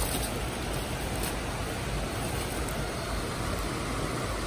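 Steady rushing noise of fast-flowing river water.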